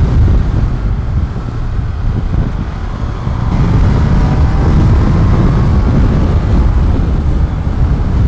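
Wind rumble on the microphone mixed with the MV Agusta Turismo Veloce 800's three-cylinder engine running under way on the move.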